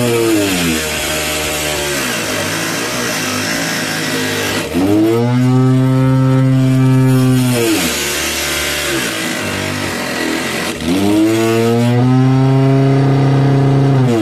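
Homemade mini table saw: a 775 DC motor spinning a small toothed circular blade, its whine dropping in pitch under a rasping cutting noise as thin wooden strips are fed through. Between cuts it rises back to full speed. It bogs down and speeds up twice, then starts to bog down again near the end.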